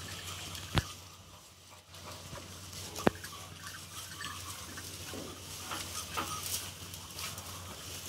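Cattle feeding on dry straw: rustling and crunching of the straw as they nose through it and chew. Two sharp knocks stand out, about a second in and about three seconds in, the second the loudest.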